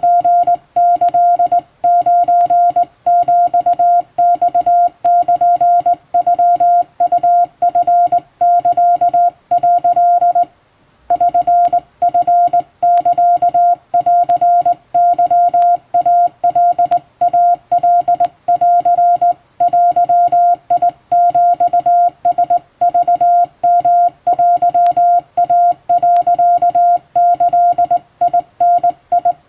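Japanese wabun Morse code sent by hand on a telegraph key: a single-pitched beep keyed on and off in dots and dashes. It breaks off briefly a little over ten seconds in, then carries on.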